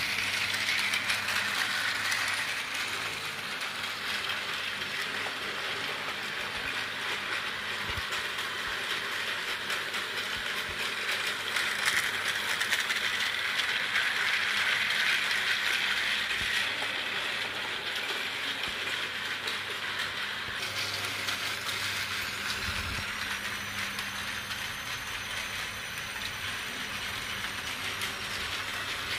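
Battery-powered Tomy toy trains running on plastic track: the small electric motors and plastic gears whir steadily, with a fine clicking rattle of wheels over the track.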